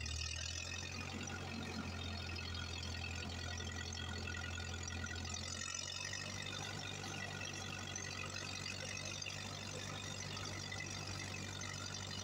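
Old tractor engine running steadily while the tractor drives along a paved road, heard up close from the driver's seat as a low, even drone. The engine note shifts slightly about six seconds in.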